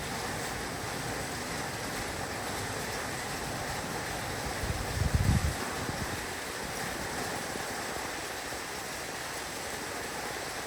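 Heavy rain falling steadily on a roof, an even hiss, with a brief low rumble about halfway through.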